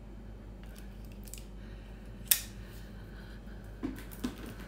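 Low steady room hum with one sharp click about halfway through, and a few fainter small clicks and brief mouth noises.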